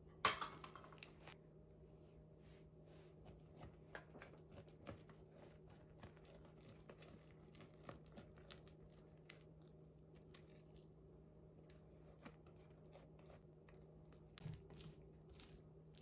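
Silicone spatula stirring thick peanut brittle candy in a glass bowl and scraping it out onto a metal baking sheet: a sharp knock just after the start, then faint scattered clicks and scrapes. A faint steady hum runs underneath.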